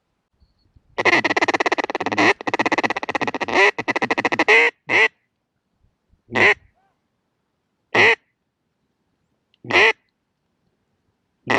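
Hand-blown mallard duck call: a long, rapid run of loud quacks, then single quacks spaced about a second and a half apart.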